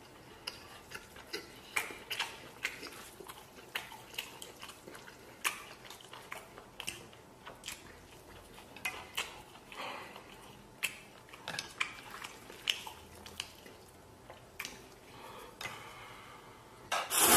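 A person eating a bowl of instant noodles and pork belly: utensils clicking irregularly against the bowl, between chewing.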